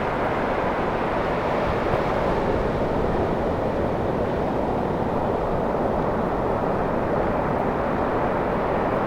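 Steady roar of ocean surf, a constant rushing noise with no separate wave breaks standing out.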